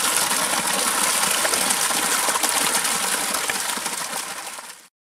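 Water gushing out of a PVC pipe elbow and splashing into muddy ground: a steady rushing that fades and cuts off near the end.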